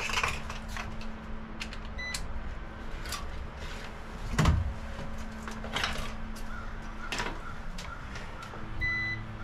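Small clicks and knocks of a fuse being pushed back into a boat's fuse block and test leads being handled, with one heavier knock about halfway through. A short electronic meter beep sounds near the end.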